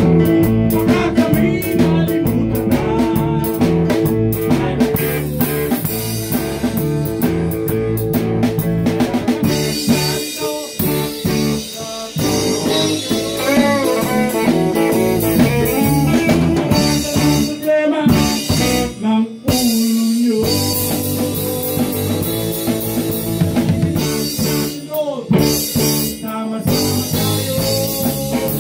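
Live band playing a song in a small room: electric keyboard and electric guitars over a drum beat, with singing.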